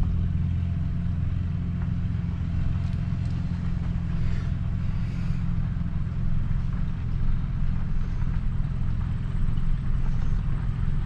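Truck engine running at a steady speed while driving, a low, even drone.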